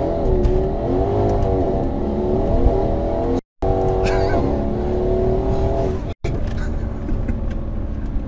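Mercedes-AMG C63 S twin-turbo 4.0-litre V8 with an ARMYTRIX exhaust, heard from inside the cabin during a short full-throttle pull. The engine note wavers up and down, then holds steady, and the sound drops out twice for a moment.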